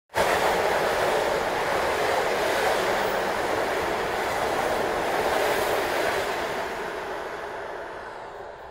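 Electric commuter train passing close by at speed: a steady rushing rumble of wheels on rails that fades over the last couple of seconds as the train pulls away.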